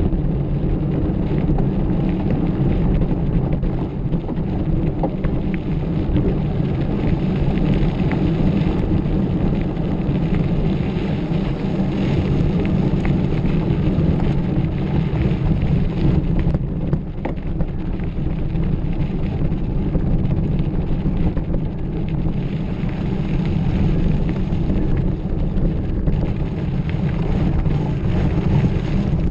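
Mountain bike being ridden on a dirt trail: a steady rush of wind on the microphone over the low rumble of the tyres, with a few faint ticks.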